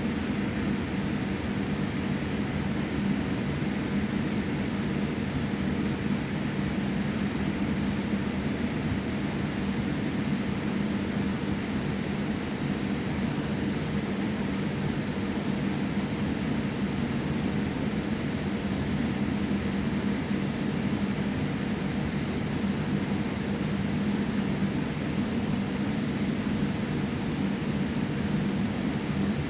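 Steady cabin noise of a Boeing 787-8 Dreamliner in the climb after takeoff: an even rush of engine and airflow with a low hum and a faint steady tone, unchanging throughout.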